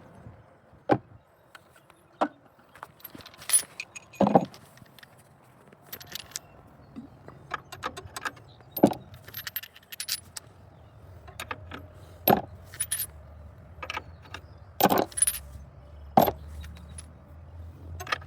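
Metal wrenches clinking and clanking against each other as they are handled and sorted through, in irregular sharp knocks with a bright metallic ring.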